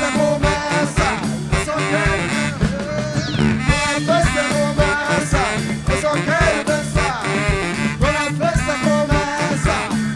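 A live band playing an upbeat dance song: drum kit, electric bass, electric guitar and keyboard over a steady driving beat.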